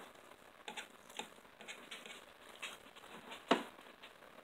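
Eating noises: a fork tapping and scraping on a plate in several short clicks, with one louder click about three and a half seconds in.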